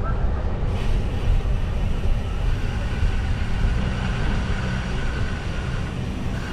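Steady rumble of wind and tyre noise from a bicycle ride on a paved trail, with a faint steady high tone through the second half.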